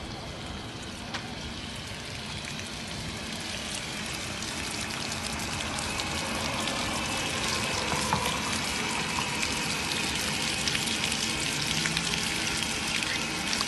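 Water spraying from a car-wash hose onto a dog's coat and the wet concrete around it: a steady hissing spatter that grows slightly louder.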